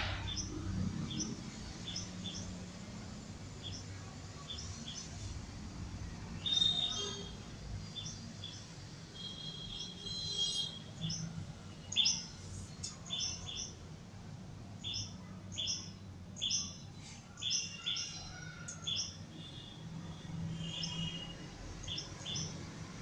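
Birds chirping: many short, high chirps repeated at irregular intervals, coming thickest in the second half, over a faint low steady hum.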